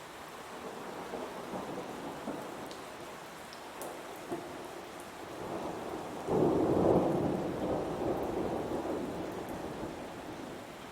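Heavy rain falling steadily, with thunder: a low rumble grows over the first few seconds, then a loud clap about six seconds in that rolls away over the next few seconds.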